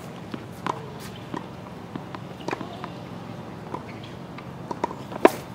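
Tennis balls struck by rackets and bouncing on hard courts: scattered sharp pops, with one loud pop about five seconds in.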